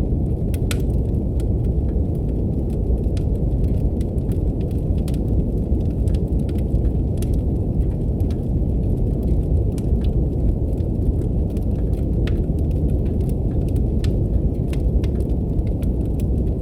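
Steady brown noise, a deep even rumble-like hiss, with the scattered crackles and pops of a wood fire in a fireplace on top.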